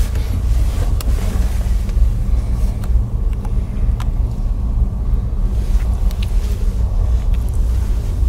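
Steady low drone of a car ferry's engines, heard inside a passenger cabin, with a few faint clicks.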